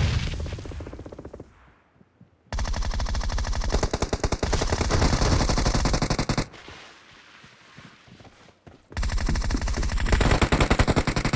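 Automatic gunfire in a shooter video game: one loud shot at the start that rings away over about a second, then a long burst of rapid fire from about two and a half seconds in, lasting some four seconds, and another burst starting about nine seconds in.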